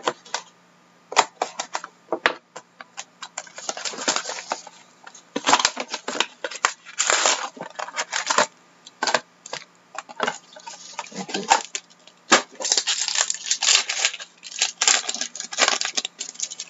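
A sealed box of hockey cards being opened and unpacked: crinkling wrapper, cardboard and foil packs handled, with irregular clicks and rustles throughout.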